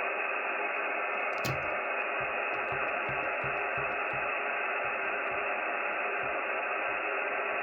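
Shortwave communications receiver's speaker giving a steady hiss of band noise and static, with no clear signal coming through.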